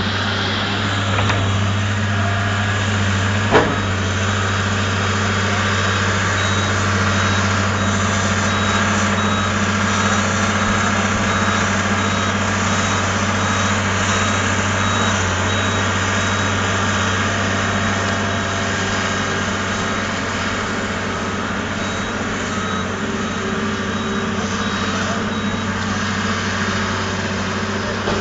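Construction machine's engine running steadily at a constant speed, with a single sharp knock about three and a half seconds in and a faint repeating high beep through the middle.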